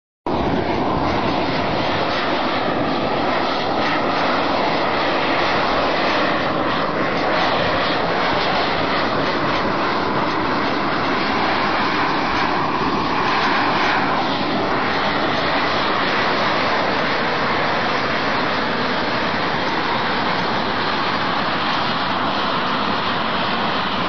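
Volcanic steam vent (fumarole) jetting pressurised steam: a loud, steady rushing hiss that holds unbroken throughout.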